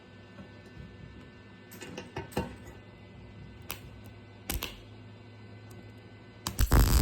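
A few scattered clicks and knocks over a low steady hum, then near the end an electric welding arc strikes and starts crackling loudly.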